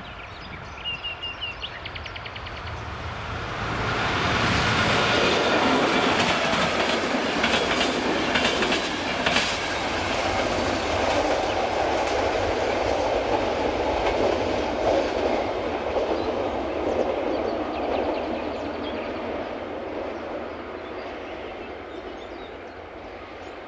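Passenger train passing the level crossing. Its wheels clatter over the rail joints with a run of sharp clicks at the loudest point, and the sound builds over a few seconds and fades away near the end.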